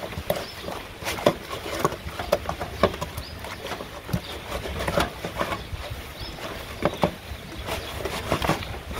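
Wet squelching and slapping from hands rubbing and squeezing raw pork belly in an enamel bowl, cleaning it with salt and vinegar, in irregular strokes several times a second. A steady low wind rumble runs underneath.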